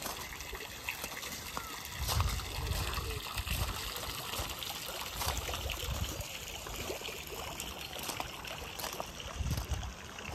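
Garden fountain water trickling and splashing, with low rumbles on the microphone.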